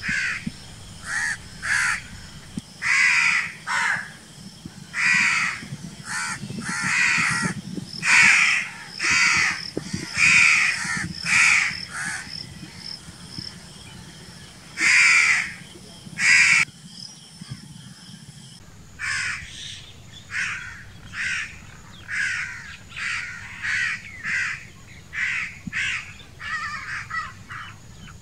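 House crows cawing over and over: many short, harsh caws, one to two a second, with a quiet spell of a few seconds near the middle.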